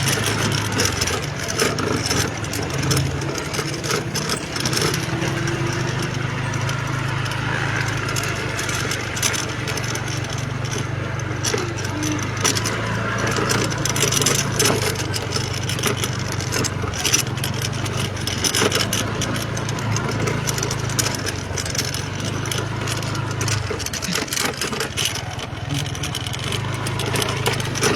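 Vehicle engine running steadily on the move, a constant low hum under road and wind noise with scattered small rattles and clicks.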